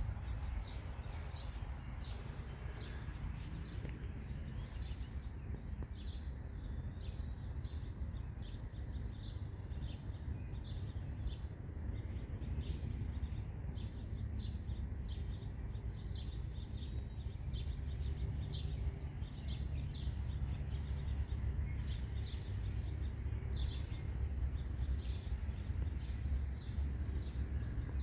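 Birds chirping in short, repeated calls over a steady low rumble.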